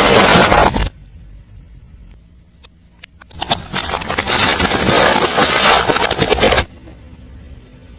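Car tyre rolling over crunchy objects and crushing them: a dense crackling crunch that stops about a second in, a few scattered cracks, then a second long crunch from about three seconds in that stops sharply near seven seconds.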